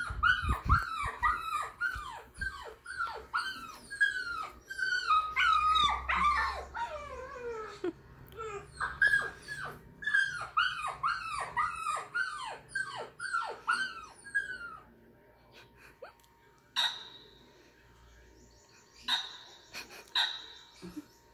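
Dog whining in a quick run of short yelps, each one falling in pitch, about two a second, dying away after about fifteen seconds. A few brief rustling noises follow near the end.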